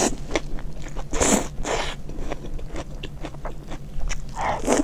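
A person chewing and biting food close to the microphone: scattered small clicks with louder noisy bites about a second in and again near the end.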